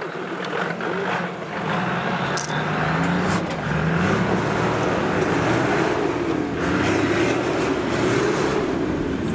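Toyota Land Cruiser 70 series engine pulling the truck up a dirt slope, its revs rising and falling as the driver works the throttle.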